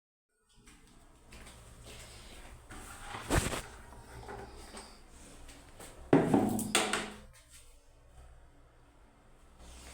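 Irregular knocks and clatter of things being handled, with a sharp knock about three seconds in and a louder clatter about six seconds in.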